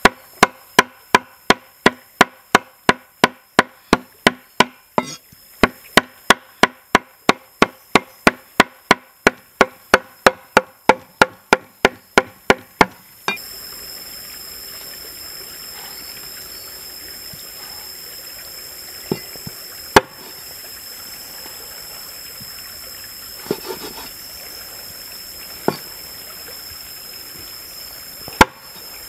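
Cleaver chopping raw meat on a wooden board in quick, even strokes, about three a second, stopping about 13 seconds in. After that a steady hiss remains, with a few single knocks on the board.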